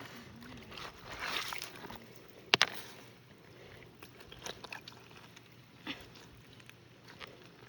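Stream water running and sloshing while rocks are handled and shifted in it, with one sharp double knock of rock on rock about two and a half seconds in, the loudest sound, and a few lighter clicks later.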